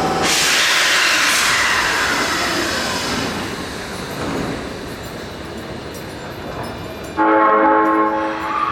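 A subway train running through the station, its motor whine falling in pitch as it slows, then fading. Near the end, a train horn sounds once, steady for over a second.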